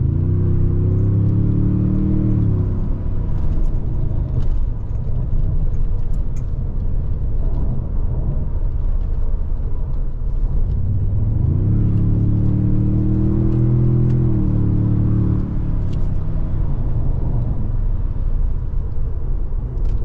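Cabin sound of a 2022 Toyota Tundra's twin-turbo V6 under hard acceleration with Engine Sound Enhancement on, so a synthetic exhaust note comes through the cabin speakers. The engine note climbs in pitch, holds, then fades, twice: once at the start and again about 11 seconds in. Steady road and tyre noise runs underneath.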